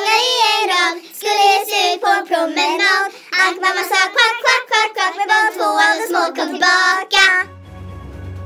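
A child singing a quick run of short notes with a wavering pitch. Instrumental background music takes over a little past seven seconds in.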